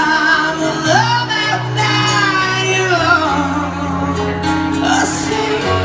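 Live acoustic music: a man singing a flowing melodic line over two nylon-string guitars, with sustained low notes underneath.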